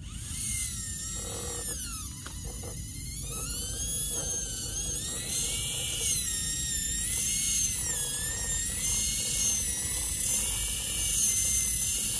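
Small electric motor of a scale RC crawler's winch whining as it reels in the line and hauls the truck up out of the mud, starting suddenly, its pitch wavering up and down with the load.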